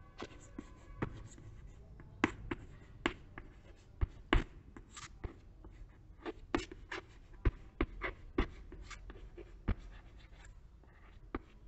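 Chalk writing on a blackboard: a string of short, irregular taps and scratches as letters are written, thinning out near the end.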